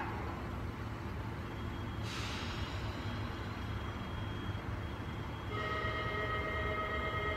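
KiHa 75 diesel railcar's engine idling with a steady low rumble. A short hiss of air comes about two seconds in, and a steady high whine joins about five and a half seconds in.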